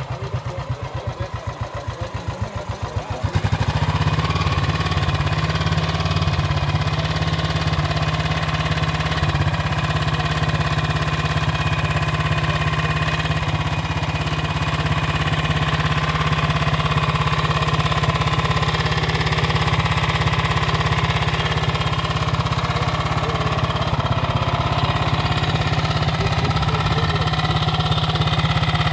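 Old motorcycle engine idling with an even, pulsing beat, then about three seconds in it opens up and runs louder and steadily.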